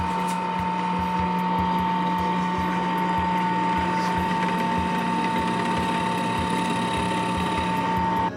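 Drill press running steadily with a constant high motor whine as its twist bit bores through a pine strip; it cuts off suddenly near the end.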